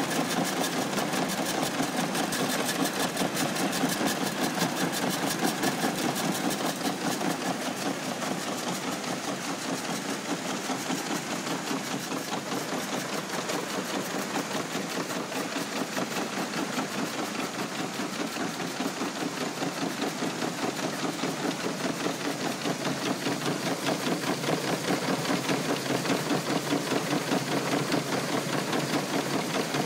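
Clipper 2B Special grain, seed and bean cleaner running as wheat passes through it, its shaking screens rattling in a fast, even rhythm.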